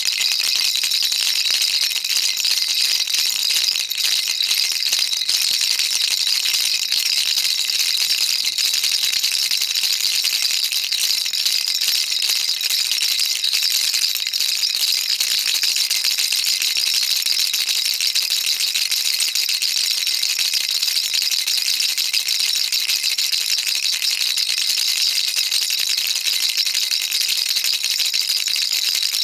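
Baby rattle shaken continuously: a steady, dense, high-pitched rattling of small beads inside the toy, without pauses.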